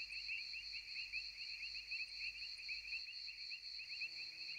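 Steady chorus of insects chirring in two high, unbroken bands, one of them pulsing rapidly. A faint low hum joins near the end.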